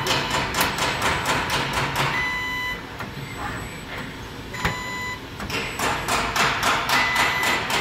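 Robotic spot-welding guns making welds: three short high whines with overtones, each about half a second long, from the weld current. The second starts with a sharp click as a gun closes. Throughout, except during the whines, a fast rattling clatter of about five strokes a second.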